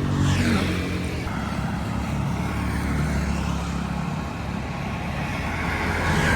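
Road traffic: motor vehicle engines running close by. One vehicle passes with a falling pitch in the first second, and another grows louder near the end.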